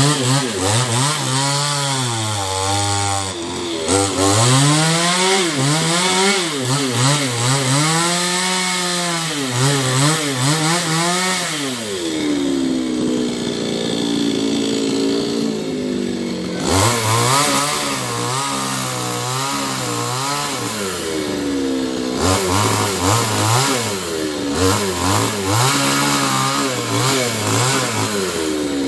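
Newwest 588 two-stroke chainsaw revving up and down again and again as it cuts into a coconut palm trunk. For a few seconds in the middle it drops back to a lower, steadier run before revving again.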